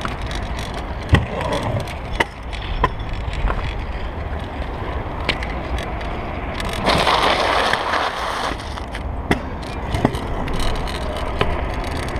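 Stunt scooter's hard wheels rolling over asphalt, with sharp clacks and knocks scattered through. A louder rough rushing noise runs for about two seconds midway.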